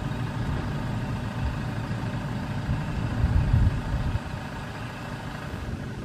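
A vehicle engine idling steadily, a low rumble.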